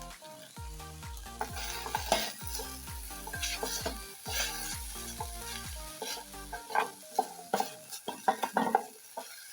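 Chopped beef and green bell pepper sizzling in a cooking pot while being stirred, a spoon scraping and knocking against the pot, with sharper knocks in the last couple of seconds. Background music with a bass line plays under it and stops about two-thirds of the way in.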